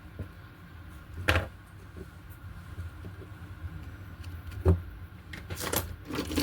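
A few sharp clicks and taps of small tools working on the wire joint of an LED TV speaker, over a low steady hum.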